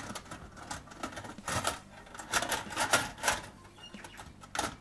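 Brass clock plates and wheels clinking and rattling against a wire mesh basket as they are packed in: a string of irregular small metallic clicks, with a sharper clack near the end.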